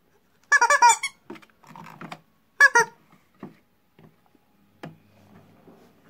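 Rubber squeeze toy squeaking: a quick run of high squeaks, then a second, shorter pair about two seconds later, followed by softer scuffs and rustling.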